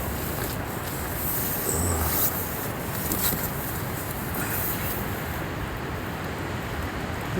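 Strong gusty wind, around 50 mph, buffeting a backpacking tent, a steady rushing with sporadic sharp flaps and rattles of the tent fabric.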